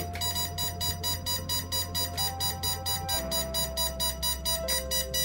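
Background music: a fast, even ticking beat of about six ticks a second over held electronic notes and a bass line that change pitch every second or two.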